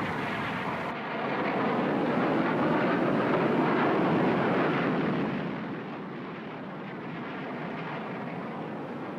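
Jet aircraft engine noise. It swells to a peak and then fades, as a plane passes over.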